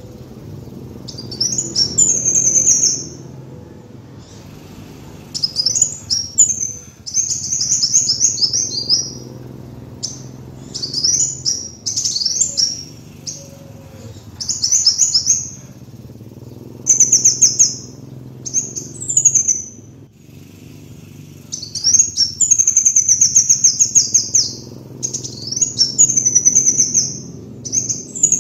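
Kolibri wulung sunbird singing: bursts of fast, high-pitched twittering trills, each a second or two long, repeated every couple of seconds, over a faint steady low hum.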